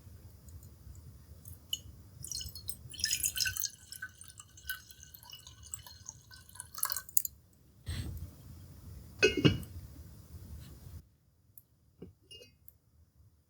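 Liquid poured into a glass with a ringing, pitched gurgle, followed by two knocks of glassware being handled.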